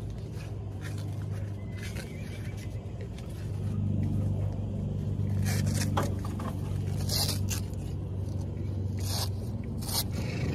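Hook-and-loop (Velcro) straps on horse leg boots being pulled open and fastened: several short ripping sounds from about halfway through, over a steady low engine hum.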